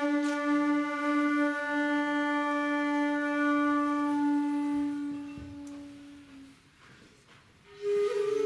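Shakuhachi (end-blown bamboo flute) playing a long, low held note that fades away about six and a half seconds in; after a brief pause a new, higher note begins near the end.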